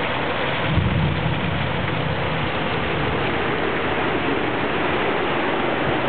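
Heavy, wind-driven rain pouring down in a thunderstorm, a steady loud hiss, with a low rumble swelling about a second in.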